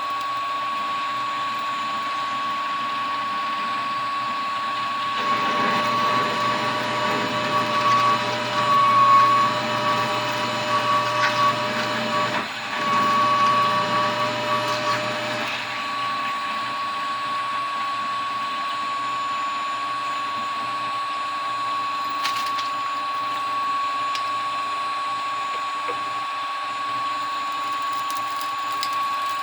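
Lathe running with a steady whine while a poorly sharpened 15/16-inch core drill in the tailstock cuts into the part. From about five seconds to about fifteen seconds in, the cutting noise gets louder as the drill is fed in, with a brief break about twelve seconds in.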